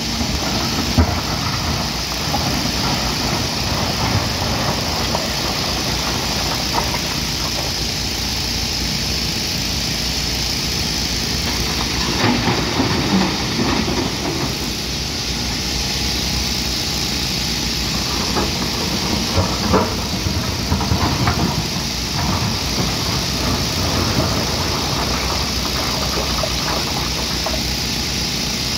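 Hyundai 215 excavator's diesel engine running steadily, with a few short knocks and clanks from the working machine, bunched around the middle and later on.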